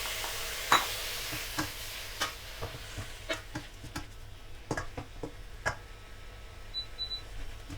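Spatula clicking and scraping against a pan as shrimp and squid are stir-fried, with irregular knocks about once or twice a second. Under them runs a sizzle that is strong at first and dies down within the first couple of seconds.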